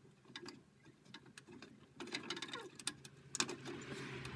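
Irregular small plastic clicks and taps from a boiler's control circuit board and its wiring connector clips being handled and pushed into place, with a brief rustle near the end over a faint low hum.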